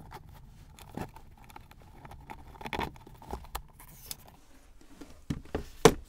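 Leather strap and metal strap hardware being handled on the bag: scattered soft clicks, rubs and taps, with a louder sharp knock near the end.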